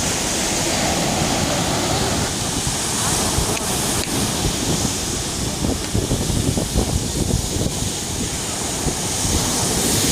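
Stormy sea surf breaking and rushing continuously, with strong wind buffeting the microphone in uneven gusts.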